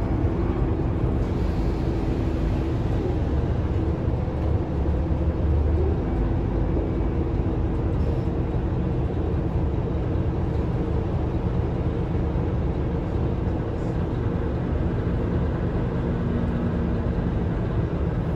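Scania K320UA articulated bus engine running steadily, heard from inside the passenger cabin as a low, even rumble.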